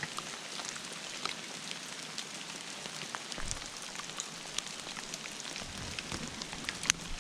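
Hail falling: a steady hiss with many sharp, scattered ticks of individual hailstones striking, and one louder hit near the end.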